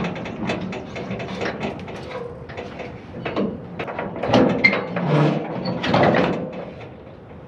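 A gate being pulled shut, with a run of irregular clanks and rattles, loudest past the middle.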